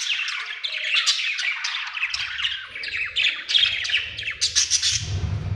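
Budgerigar chattering: a rapid, continuous run of scratchy chirps and squawks, the warble of a contented budgie. A low hum comes in near the end.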